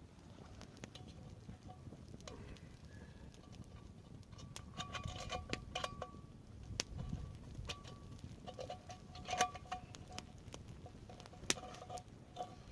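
Metal cooking pot being handled for boiling water: a series of light knocks and clinks, many leaving a short metallic ring, busier in the second half.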